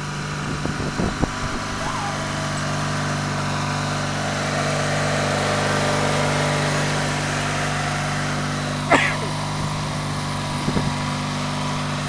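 New Holland LS55 riding lawn mower's engine running steadily as it drives across the yard. About nine seconds in comes a brief sharp sound.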